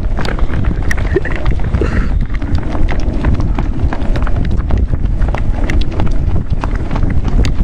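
Footsteps of a group of runners on a paved road, many irregular footfalls, under heavy wind rumble on the microphone.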